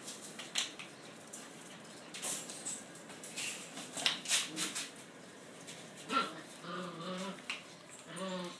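Nine-week-old rough collie puppies playing on a concrete floor: a scatter of sharp clicks and taps from claws and toys. A few short puppy vocal sounds come near the end.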